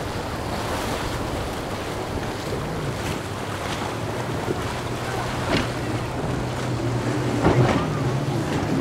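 Twin Yamaha 350 V8 outboards running at speed, a steady engine hum under rushing water and wind noise on the microphone. A few sharp slaps of the hull hitting waves come in the second half.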